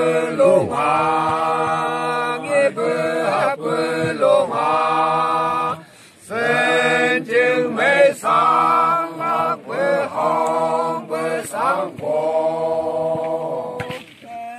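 Voices singing a chant-like song without instruments, in long held phrases with short breaks and a longer pause about six seconds in.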